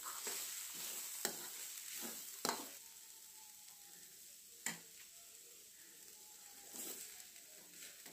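A steel spoon stirs and scrapes greens with dal in a stainless steel pan over a faint frying sizzle. The stirring is busy for the first two or three seconds, then gives way to a few sharp taps of the spoon on the pan.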